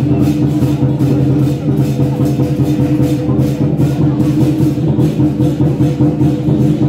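Music with drums and percussion beating steadily over sustained, held pitched tones.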